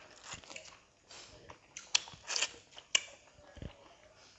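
Close-miked eating sounds: chewing and wet mouth clicks, with irregular sharp crackles, the loudest about two and three seconds in.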